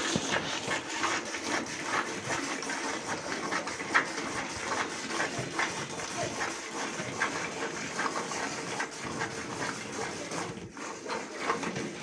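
Hand milking a cow: jets of milk squirting from the teats into a plastic bucket partly filled with milk, a rhythmic hissing spurt about two to three times a second as the hands alternate.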